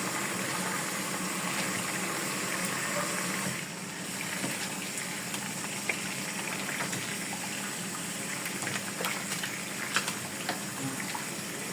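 Water running steadily into a container of mashed soursop pulp, easing off a little about three and a half seconds in, with small splashes and clicks after.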